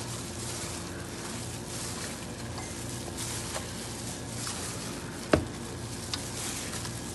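Gloved hand mixing raw chicken wings in a vinegar and tandoori-masala marinade in a stainless steel bowl: wet squishing and plastic-glove rustling over a faint steady hum, with one sharp click about five seconds in.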